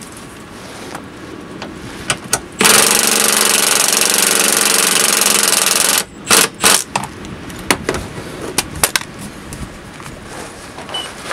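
Cordless power tool on a long socket extension running on a bolt for about three and a half seconds, then stopping suddenly. Sharp clicks and knocks of the tool and metal parts being handled come before and after it.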